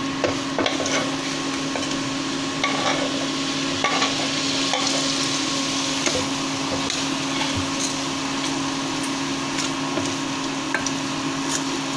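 Onion-tomato masala sizzling in a stainless steel kadai while boiled egg pieces are tipped in and stirred with a steel spoon, with scattered clicks and scrapes of the spoon against the pan. A steady hum runs underneath.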